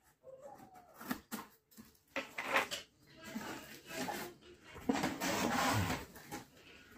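A cardboard box being opened: a knife slitting the packing tape, then the cardboard flaps scraping and rubbing as they are folded back and pulled open, loudest about five seconds in.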